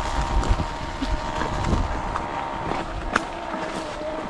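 Footsteps walking through dry fallen leaves, with wind rumbling on the microphone.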